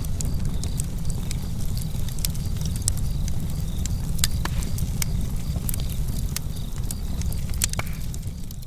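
Fire crackling: scattered sharp pops over a steady low rumble, fading out at the very end.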